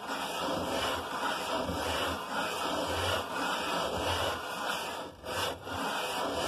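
Briggs & Stratton 5 HP flathead engine's finned cylinder block being rubbed in circles on sandpaper stuck to a flat board: a steady gritty scraping that swells and eases with each circular stroke, roughly once a second. The sanding laps the mating face flat, to take out a slight bow.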